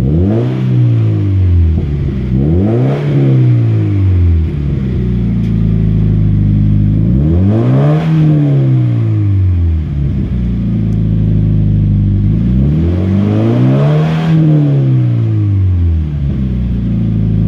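Subaru BRZ's flat-four engine breathing through a Greddy Evolution GT cat-back exhaust, revved four times from idle: two quick blips, then two longer, slower revs, settling back to idle between them. A deep exhaust note.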